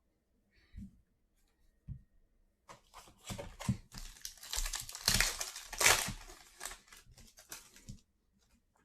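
Trading-card pack wrapper being torn open and crinkled, starting about three seconds in after a couple of soft thumps.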